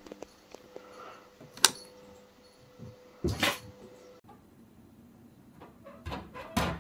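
Household knocks: a sharp click, then a thump about three and a half seconds in as a kitten jumps onto a table. Near the end a plastic cat flap rattles and knocks as a cat paws at it.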